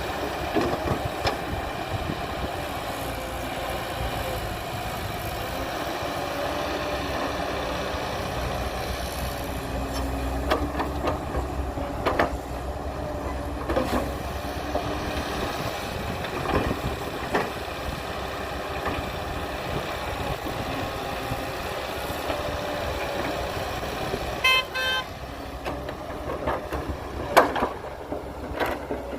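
Diesel engines of earthmoving machinery running steadily, with scattered sharp knocks and clanks. Near the end a quick run of short beeps sounds.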